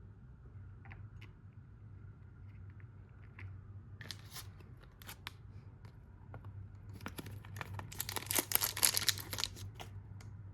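Crinkly tearing and rustling of handled packaging, in bursts that grow denser and louder toward the end, after a few scattered light clicks.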